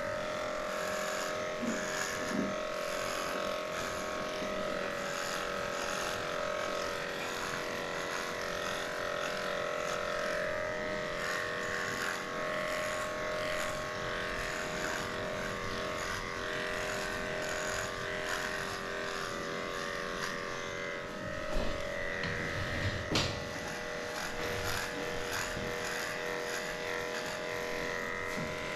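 Cordless electric dog clipper running steadily with a constant buzzing hum as it shaves through a schnauzer's matted coat. A few brief knocks come about three quarters of the way through.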